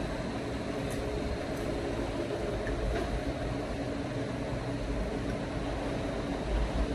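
Steady low hum and hiss of room noise, with a few faint clinks of a fork and knife on a plate.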